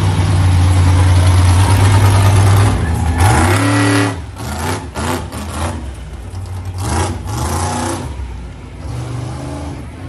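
Monster truck engine running loud, then revving with rising pitch about three seconds in. A quick run of sharp bangs follows around four to five seconds, then another rev near seven seconds before the engine drops back.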